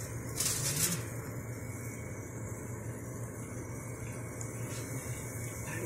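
Aluminium foil crinkling briefly as it is pressed over a pan of crabs on an infrared cooker, then a steady low hum.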